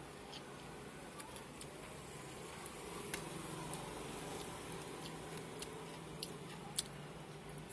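Faint eating sounds: scattered small clicks and ticks as fingers pick through fish on a steel tray, with a couple of sharper clicks near the end, over a low steady hum.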